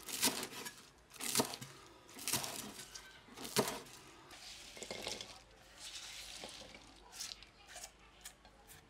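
Kitchen cleaver chopping spring onion stalks on a wooden cutting board, four crisp chops about a second apart. Then the cut pieces are gathered up with a rustle and set onto a plate with a few light taps near the end.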